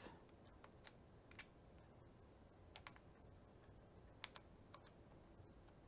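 A handful of faint, scattered clicks from the 1/4-inch hex quick-release chuck of a Milwaukee M4 cordless screwdriver, as the chuck collar is lifted and released and a hex bit is handled in and out of it.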